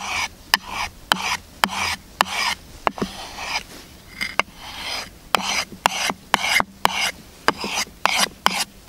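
Steel knife blade stroked repeatedly across fine wet-dry sandpaper glued to a wooden board: a short scraping rasp about twice a second, each stroke starting with a sharp tick.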